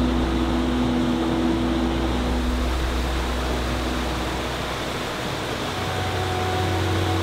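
Ambient background music: held low notes and chords over an even hiss, the bass note shifting about five seconds in.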